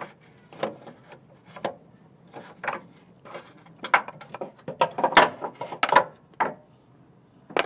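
Irregular metal clanks, knocks and scrapes as a Honda Civic's passenger-side CV axle is pried and worked out of its B-series transmission with a hammer, the busiest run of clanks near the middle.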